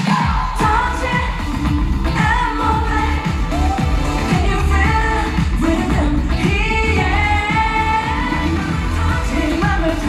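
A female pop singer sings live into a handheld microphone over a K-pop backing track with a heavy bass beat, amplified through the venue's sound system.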